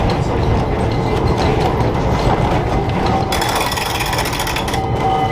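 An old Rotterdam streetcar running along its track, heard from the cab: a steady low rumble with clicks and rattles. About three seconds in, a loud hiss lasts for over a second.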